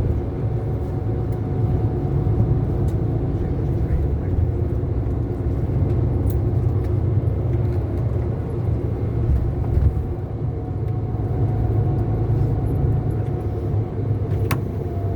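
Steady engine and road rumble heard inside a moving road vehicle, with faint steady engine tones. One sharp click near the end.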